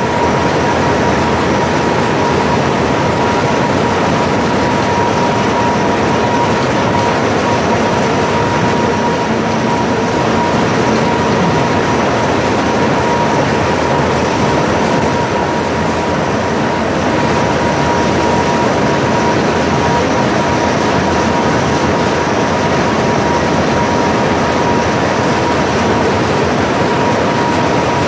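Belt-driven SUMER roller cotton gin running, ginning seed cotton into lint: a loud, steady machine din with a constant whine.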